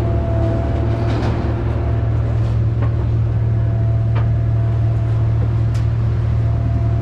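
Pickup truck driving, heard from inside the cab: a steady low drone of engine and road noise with a faint steady whine and a few light ticks.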